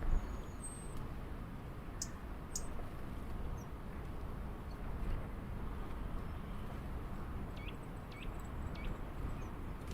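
Faint, short, high chirps and calls from small birds at a backyard feeder over a steady outdoor background hum, with two sharp clicks about two seconds in.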